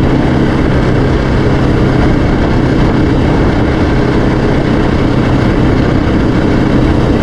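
Yamaha Raptor 700R ATV's single-cylinder engine running at a steady speed while riding, loud and even throughout.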